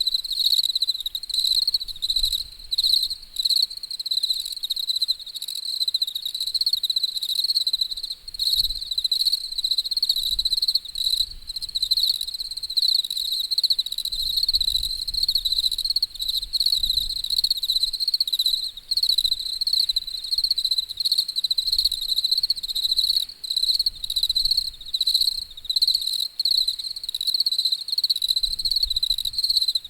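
A chorus of insects trilling, a steady high-pitched continuous drone with a fast flutter, typical of crickets at night. A faint low rumble comes and goes underneath.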